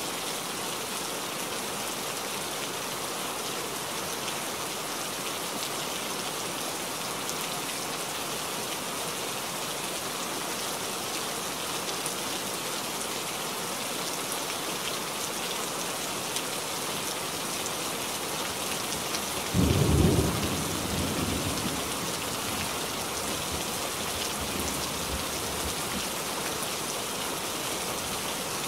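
Steady rain falling, with one sudden clap of thunder about two-thirds of the way through that rumbles off over a couple of seconds.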